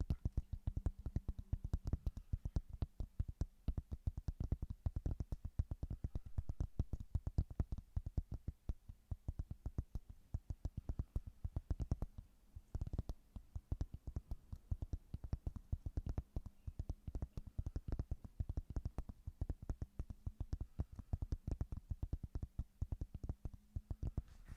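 Rapid, continuous tapping on a surface, many quick taps a second in an uneven flurry, over a faint steady hum.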